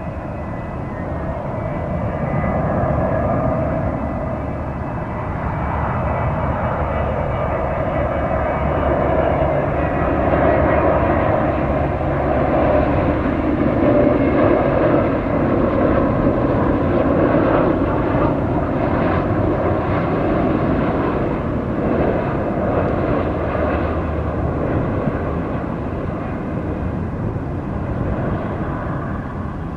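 Jet engine noise from a Boeing 767-300BCF freighter's two GE CF6-80C2 turbofans as the aircraft arrives: a steady rush with a few held tones that grows loudest in the middle of the stretch and then eases slightly.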